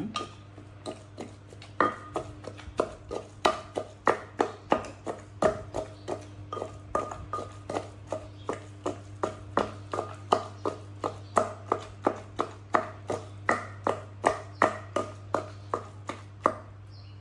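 Wooden pestle pounding in a terracotta mortar: a steady run of knocks, about three a second, each with a brief ringing tone from the clay bowl. The pounding settles into its rhythm about two seconds in and stops shortly before the end.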